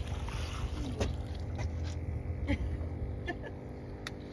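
Water splashing as a fish thrashes in a landing net beside a boat hull, with a few short knocks over a steady low rumble of wind and water.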